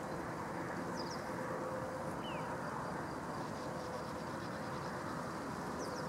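Steady low outdoor background noise. A few faint, short, high bird chirps fall in pitch over it: two close together about a second in, another about two seconds in, and one near the end.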